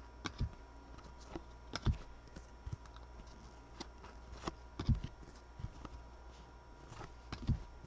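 Football trading cards being flipped through one at a time in the hands, card stock giving irregular soft taps and slaps as each card is moved to the back of the stack.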